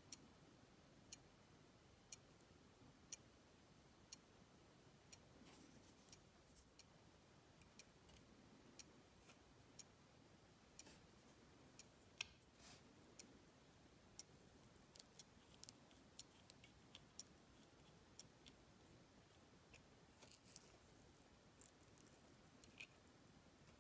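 Faint, steady ticking once a second, with irregular small clicks and taps in between that come thicker in the middle stretch.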